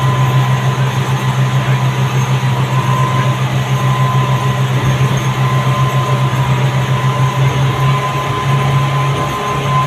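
Twin Honda 225 four-stroke outboard motors running steadily at speed, a loud even drone with a rush of wake water and wind over it.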